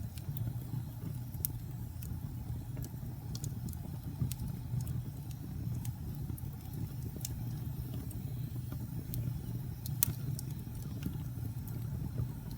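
Wood fire burning: a steady low rumble of flames with scattered sharp crackles and pops, the loudest about ten seconds in.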